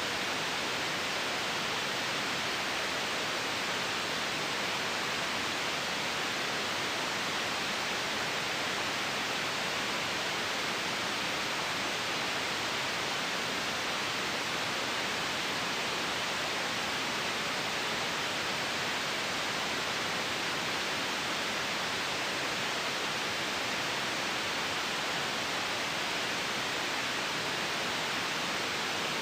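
Steady, unchanging white noise: an even hiss with no breaks, strongest in the upper-middle range.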